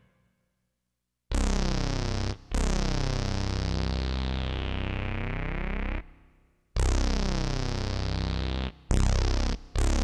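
Roland SC-55 sound module playing single synthesizer notes sent from a homemade Arduino keypad MIDI controller. After about a second of silence come a short note, a long held note of about three and a half seconds, another of about two seconds, and then two quick short notes near the end.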